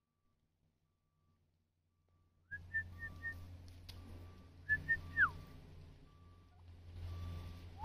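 Near silence, then about two and a half seconds in a run of short high whistled notes, a pair more about five seconds in ending in a falling whistle, and a short rising whistle at the end, over a low background rumble.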